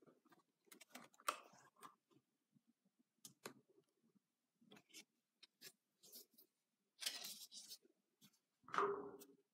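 Faint handling of a spiral-bound paper sketchbook: pages and a stuck-in card flap rustling and sliding under a hand. There are sharper paper sounds about a second in, a longer rustle about seven seconds in and another near the end.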